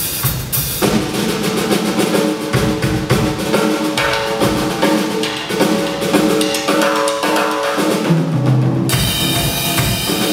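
A rock band playing: a drum kit keeping a beat under held chords, with lower notes coming in near the end.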